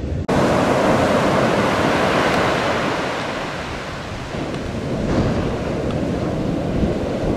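Ocean surf breaking in the shore break: a steady rush of waves and whitewash that cuts in abruptly a moment in.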